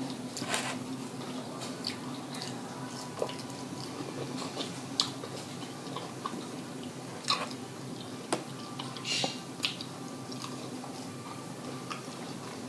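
Close-up eating sounds of crispy fried food being bitten and chewed: scattered crisp crunches and mouth smacks, about one a second, over a faint steady hum.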